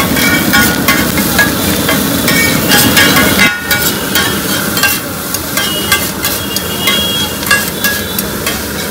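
Metal spatula scraping and clanging on a hot street-stall pan as food is fried, over a steady sizzle, with a brief break about three and a half seconds in.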